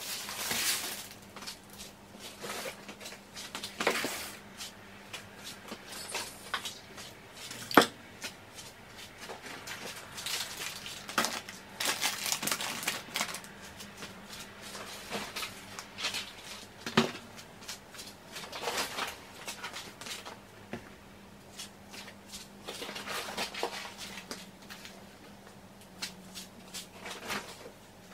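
Grocery packages being set down on a wooden countertop: scattered knocks of boxes and packets touching down, the sharpest about 8 and 17 seconds in, between stretches of rustling plastic and cardboard packaging. A faint steady hum runs underneath.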